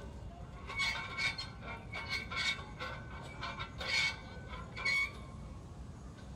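Steel hand wheels of an outdoor exercise machine being turned, squeaking and clicking in a quick, uneven rhythm. The squeaks are loudest from about one to five seconds in.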